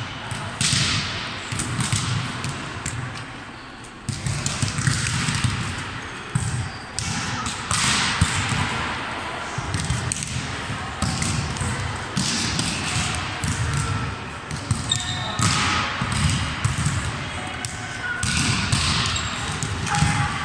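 Volleyballs struck in forearm passes and bouncing on the sports-hall floor: irregular sharp thuds from several balls at once, echoing in a large gym.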